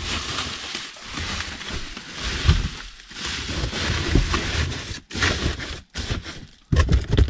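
Irregular rustling and crackling with scattered low knocks: interior trim pieces being handled and worked on in the car.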